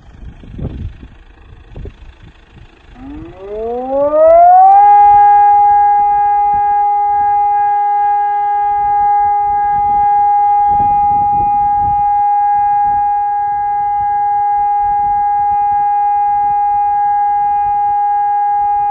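Telegrafia Screamer alert siren sounding: about three seconds in its pitch rises for roughly two seconds, then it holds one steady, loud tone.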